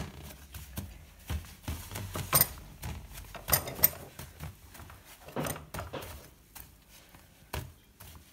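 Gloved hands pressing skewered beef into a plate of ground suya spice: scattered light taps and knocks with soft rustling, the loudest taps a few seconds in.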